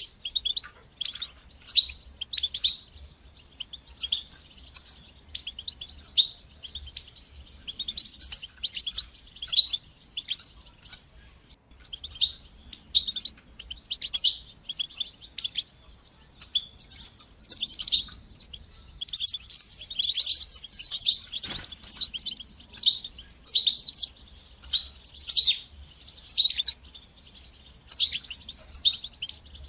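European goldfinch singing and twittering: quick clusters of short, high chirps and trills, with brief pauses between phrases.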